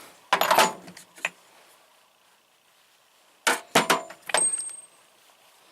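Loose steel sockets clinking and clattering against each other in a tool box drawer, in two bursts: one about a third of a second in and another at about three and a half seconds, the second leaving a brief high ring.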